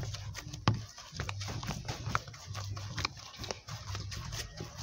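Wooden spatula knocking against a plastic bowl and squelching through thick eba dough as it is mixed and turned, an irregular run of knocks, a few louder than the rest.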